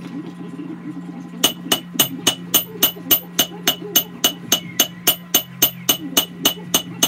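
Hand hammer forging a red-hot Damascus steel paring-knife blade on an anvil. A steady run of about four blows a second starts about a second and a half in, each with a bright metallic ring, over a steady low hum.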